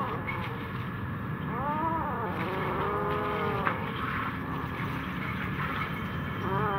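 Cat meowing three times, each call rising and then falling in pitch.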